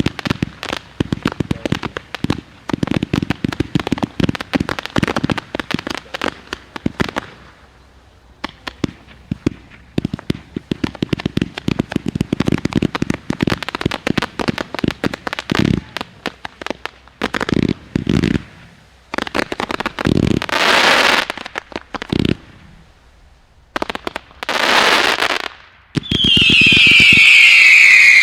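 Low-noise consumer firework cakes firing: long runs of dense crackling, then a few hissing bursts about a second each, and a loud whistle gliding down in pitch near the end.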